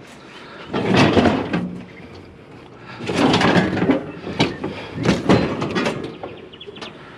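A scooter being slid and shoved into place among a load of scrap: three bursts of scraping and clunking, each about a second long.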